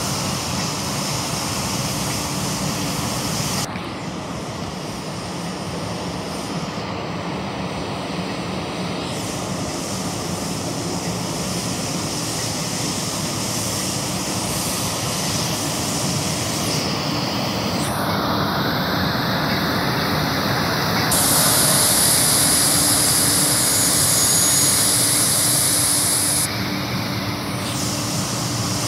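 Schwarze A7 Tornado regenerative-air street sweeper running as it sweeps the street, a steady drone of engine and blower with a constant hiss. The hiss grows loudest a little past the middle, as the sweeper comes close, then eases near the end.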